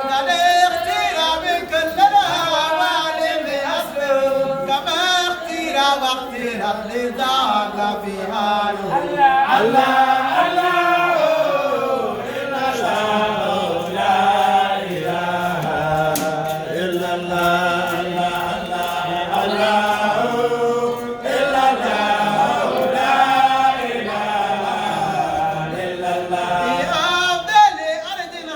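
A group of voices chanting Islamic praise (dhikr) together, in a continuous melodic line with gliding pitch.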